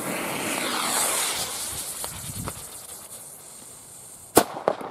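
Fuse of a cube-shaped firecracker (Kubi) hissing as it sprays sparks, the hiss fading over a few seconds, then a single sharp bang as the firecracker goes off near the end.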